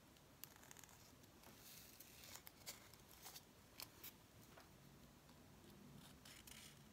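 Near silence broken by faint scattered ticks and light scratches: a pencil tracing around a paper template on a painted mini bottle gourd, and the dried gourd being handled and turned.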